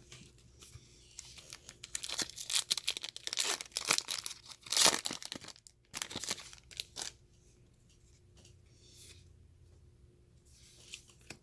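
Foil wrapper of a trading-card pack being torn open and crinkled, a dense crackling for several seconds that fades to a few faint rustles near the end.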